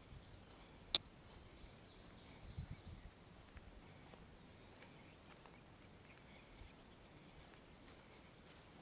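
Faint open-air ambience with birds chirping, a single sharp click about a second in, and a few soft low thumps around two and a half seconds.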